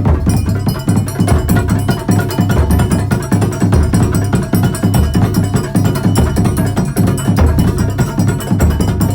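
Terbang frame drums of a kuntulan ensemble playing a fast, driving interlocking rhythm: dense hand strokes over deep, regular thumps.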